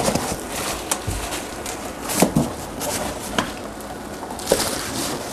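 A large cardboard packing box being lifted and slid off a heavy solar inverter unit: scattered scrapes and knocks of cardboard, with crinkling of the plastic wrap underneath.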